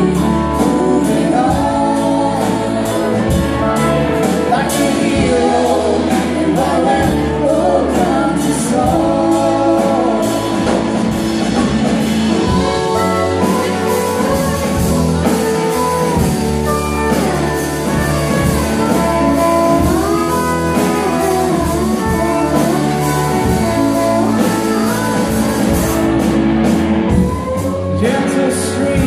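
Live band playing a song: vocals sung over electric and acoustic guitars, keyboard and drums, loud and continuous.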